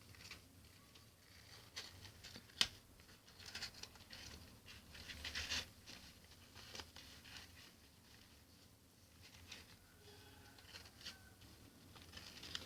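Faint, scratchy rustling of a hand stroking a cat's fur, coming in bunches, with one sharp click about two and a half seconds in.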